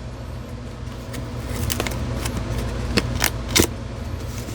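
A scattering of sharp metallic clicks and clinks from a folding knife being handled and used on the packaging, over the steady hum of a window air-conditioning unit.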